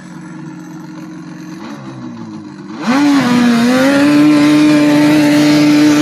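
Yamaha Banshee 350's parallel-twin two-stroke engine idling quietly, then revved hard about three seconds in and held at a steady high rev.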